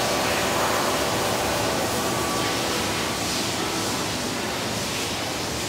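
Steady factory-floor machine noise, an even hiss and hum from a working robotic welding cell and its air handling, slowly fading.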